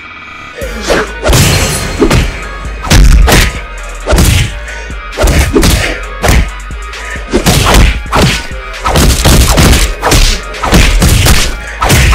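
A rapid run of dubbed punch and hit sound effects, about two to three a second, over background music. They start about half a second in, as a fight plays out.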